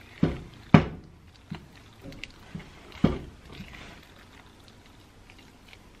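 Silicone spatula stirring wet carrot cake batter in a glass bowl: soft squishing and scraping, with three sharp knocks in the first three seconds, the loudest a little under a second in.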